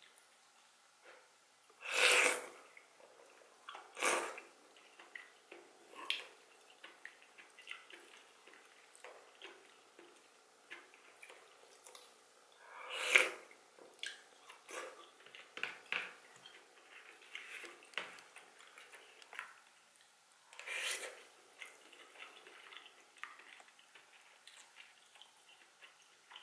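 Close-miked eating of cabbage leaves from marsh snail soup with chopsticks: four loud, wet slurps, the loudest about thirteen seconds in, with soft chewing and small wet mouth clicks between them.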